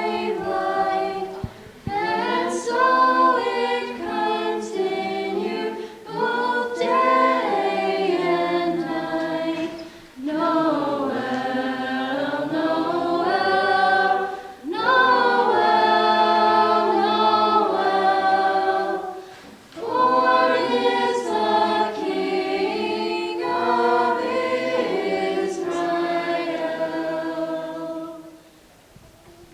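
A cappella vocal group singing a Christmas carol in several-part harmony, in phrases with short breaks between them, ending near the end.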